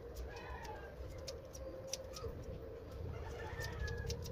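Scissors snipping through a dog's coat in short, irregular clicks, with chickens clucking in the background.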